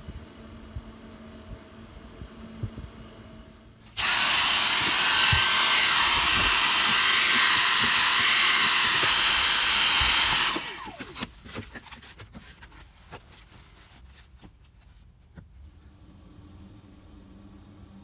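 The refrigerator's Secop compressor and cooling fan run with a faint hum. About four seconds in, a cordless vacuum cleaner switches on and runs loudly with a steady high whine for about six seconds. It then cuts off, followed by scattered light knocks and clicks.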